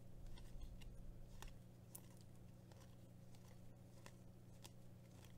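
Near silence with faint, scattered soft clicks of glossy trading cards being slid and flipped through in the hands, over a low steady hum.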